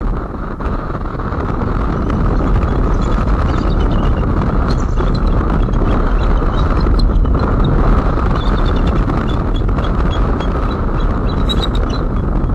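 Wind rushing steadily over the nest-cam microphone, with faint high-pitched chattering calls of bald eagles, a quick series of short notes, breaking through a few times.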